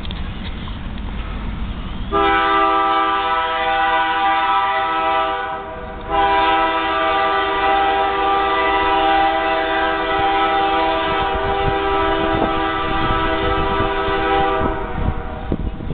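Diesel locomotive air horn on CN 2727, a GE C44-9W, sounding a chord of several notes from a distance. There are two blasts: a shorter one a couple of seconds in, and after a brief break a much longer one that stops shortly before the end.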